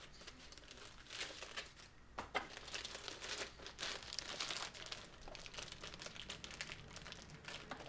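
Clear plastic wrapper around a laptop crinkling irregularly as it is handled and pulled off.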